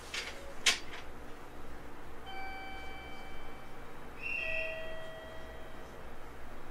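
Two-tone door-closing chime: a higher note held about a second and a half, then a lower note held about as long, warning that the train's doors are about to close. A single sharp click comes shortly before the chime.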